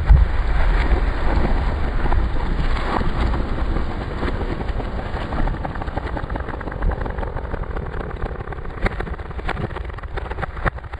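A felled hard maple trunk hits the ground with a heavy thud right at the start, followed by a steady low rumble. Near the end come several short sharp cracks.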